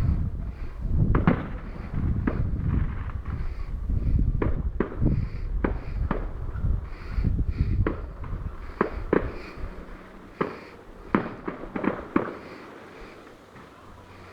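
Fireworks going off: a rapid run of bangs and crackles over a low rumble, thinning to a few scattered bangs in the last few seconds.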